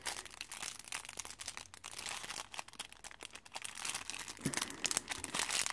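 Clear plastic wrapper around a makeup brush crinkling as it is handled, a steady run of small irregular crackles.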